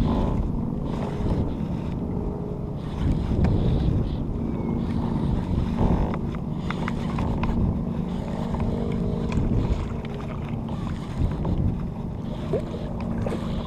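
Wind rumbling on the microphone and choppy water against a kayak's hull, with a steady low hum underneath.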